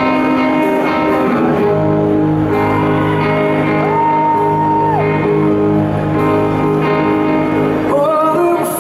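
Live rock band with electric guitars and a string section playing a slow instrumental intro of sustained chords in a large hall. The lead vocal comes in near the end.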